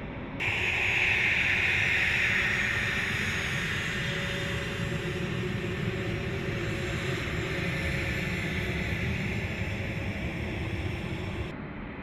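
A-10 Thunderbolt II's twin TF34 turbofan engines running on the ground: a loud high-pitched jet whine over a low rumble. The whine cuts in suddenly about half a second in, eases after a few seconds, swells again and cuts off abruptly near the end.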